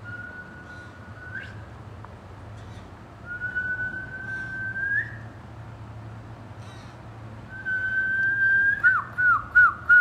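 Clear whistling: three long, steady, even-pitched notes, each lifting slightly at the end, then four quick falling notes near the end.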